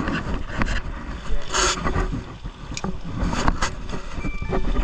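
Small boat engine running with a steady low rumble. Several knocks and a short burst of hiss about one and a half seconds in.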